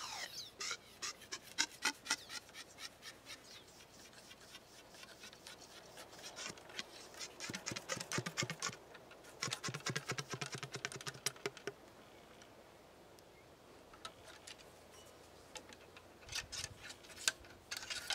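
Wooden ramrod worked down the barrel of a 12-gauge CVA Hawken muzzleloading shotgun to ram and seat the load. It makes runs of quick light clicks and taps, densest in the middle, with a lull and then a few more taps near the end.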